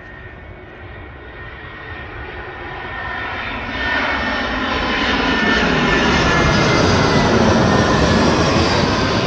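Passenger jet flying low overhead near the runway, its engine noise swelling steadily from a faint rush to a loud roar that peaks near the end, with a thin high whine on top.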